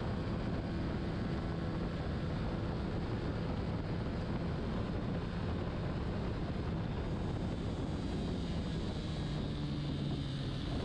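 Honda CBR125R's single-cylinder four-stroke engine running at a fairly steady pitch at racing speed, with a broad rush of wind and road noise over it.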